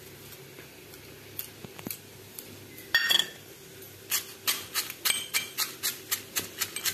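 A metal pestle pounding roasted dry red chillies and fenugreek seeds in a small metal mortar (imam dasta), about three strokes a second, starting about four seconds in. A single metallic clank about three seconds in, just before the pounding begins.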